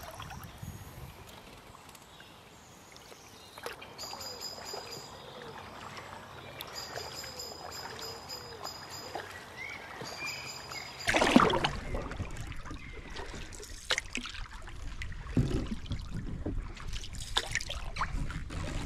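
Paddles dipping and splashing in slow river water, with water lapping at a canoe hull. It is quiet at first and much louder from about eleven seconds in.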